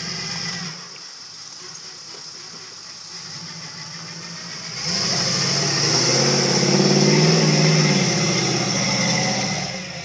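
Lifted Chevy pickup's engine running steadily at low revs, then revving hard about five seconds in as the truck climbs a steep muddy bank, and easing off just before the end.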